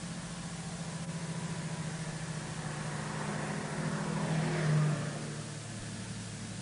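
A car driving past: a low engine hum that builds to a peak about five seconds in, then drops in pitch and fades as it moves away.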